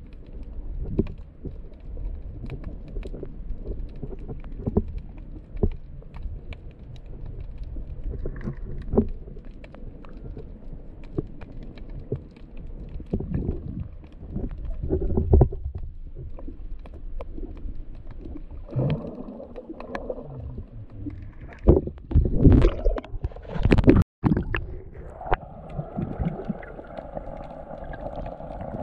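Muffled underwater sound from a camera held below the surface: low rumbling and gurgling with frequent small knocks, louder around the middle, as a snorkeler swims. A steady drone comes in near the end.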